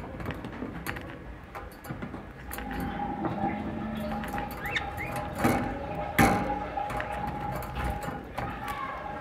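Budgerigar close to the microphone: light clicking and rustling with a few short chirps, and two sharp knocks a little past halfway. A faint steady tone sets in about two and a half seconds in.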